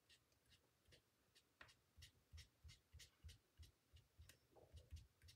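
Faint dabbing of a foam sponge dauber onto cardstock to ink its edges: a few scattered soft clicks, then from about two seconds in a steady run of soft taps, about three a second.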